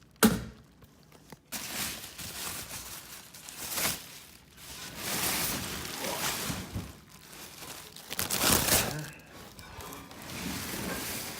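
A solid thunk just after the start, then packaging crinkling, rustling and tearing in a series of uneven bursts as a heavy steel winch tray is handled and unwrapped.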